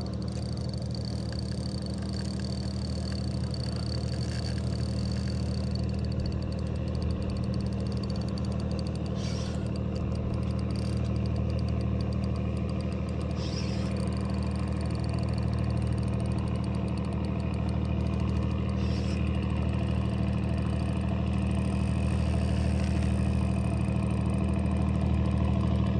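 An engine running steadily with a low, even hum, slowly growing louder.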